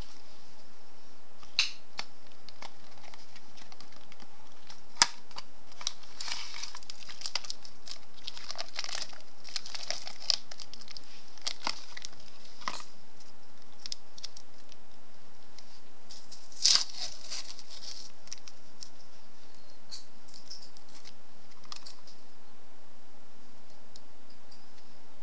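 Steady hiss with scattered small clicks and brief rustles, with sharp clicks about five seconds in and again near the seventeen-second mark.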